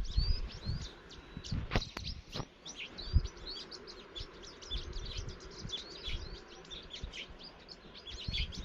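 Many small birds chirping, with quick short calls overlapping throughout. A few dull thumps and clicks come in the first three seconds.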